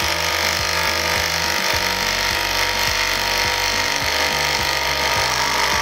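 Cordless power driver running continuously under load, driving an 8 x 100 heavy duty timber screw into hardwood, then stopping abruptly near the end as the screw goes home.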